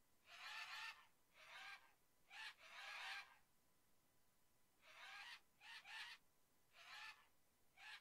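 Faint bird calls from a flock: a string of short calls, some in quick pairs, coming about once a second, with a pause of a second or so in the middle.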